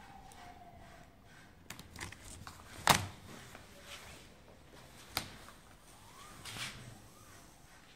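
Light handling noises in a quiet workshop as a cord is worked along an aluminium mosquito-net profile: a faint falling tone in the first second, then a few sharp clicks, the loudest about three seconds in and a smaller one about five seconds in.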